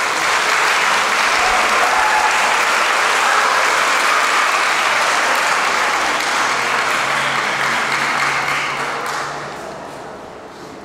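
Audience applauding in a hall; the applause starts at once, holds steady, and dies away about nine seconds in.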